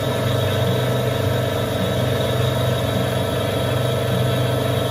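Small metal lathe running at a steady speed, its motor and gear train humming while the cutting tool works a round metal workpiece and throws off chips.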